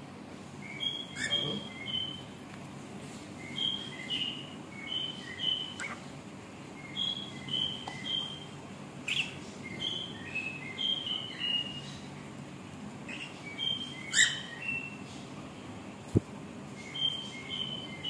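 Cockatiel singing to its reflection: phrases of short clear whistled notes, repeated with small pauses, with a few sharper chirps among them. A single sharp click about 16 seconds in.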